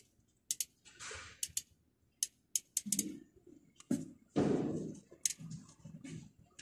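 Scattered sharp clicks and short scrapes of a pliers-type hand tool and gloved hands working thin control wires, with soft handling thuds in between.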